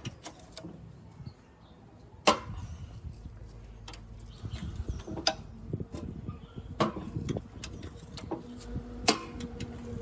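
Irregular metal clinks and knocks from tools and parts being handled during the air compressor restoration, with four sharper strikes spread through. A faint steady hum comes in near the end.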